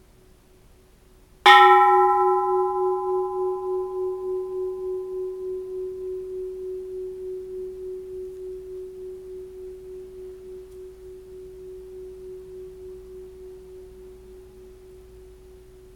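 Bronze Japanese Buddhist temple bell struck once, lightly, about a second and a half in. The higher overtones die away within a few seconds while one low hum rings on with a rapid, even wavering, slowly fading but still going.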